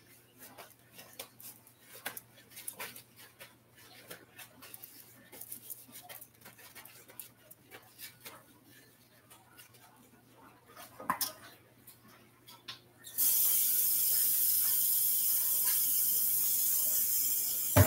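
Scattered light clicks and knocks from things being handled, then, about 13 seconds in, a kitchen faucet turned on, with water running steadily into the sink.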